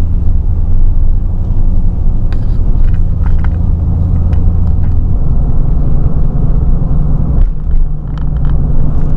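Car driving along the road, heard from inside the cabin: a steady, loud, low drone of engine and road noise that dips briefly near the end.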